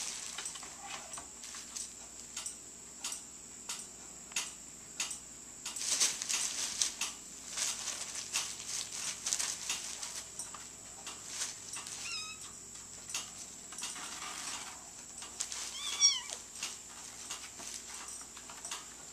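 A plastic shopping bag crinkling and rustling in short bursts as two cats wrestle on it. A cat gives two or three short, high mews, one about twelve seconds in and a louder pair around sixteen seconds.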